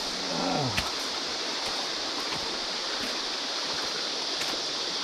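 A shallow creek running over rocks, with the high, even buzz of cicadas above it.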